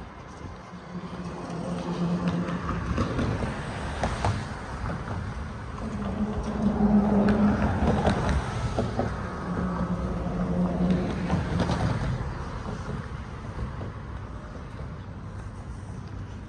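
A low motor drone with a steady hum, swelling over several seconds and fading away, with a few knocks along the way.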